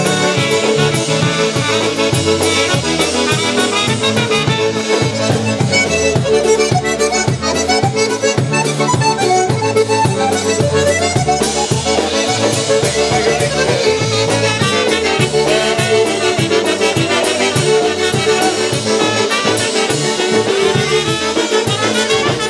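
Live Polish polka band playing an instrumental passage: accordions, trumpet and saxophone over bass guitar and drums, with a steady beat.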